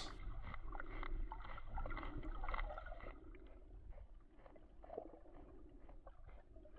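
Manatee munching seagrass, heard underwater: faint scattered crunching clicks, quieter after about three seconds.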